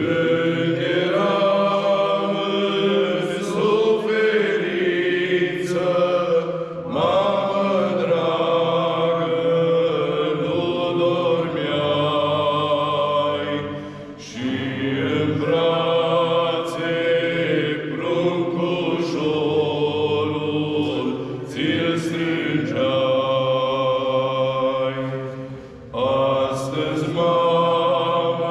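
Orthodox priests chanting a sung prayer in long held phrases, with short pauses between phrases.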